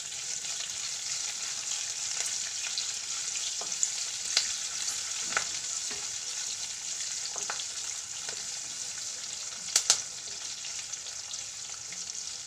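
Hot oil sizzling in a non-stick kadhai as sesame seeds, mustard seeds, green chillies and curry leaves fry for a tempering, stirred with a wooden spatula. Occasional sharp clicks over the steady sizzle, the loudest a little before ten seconds in.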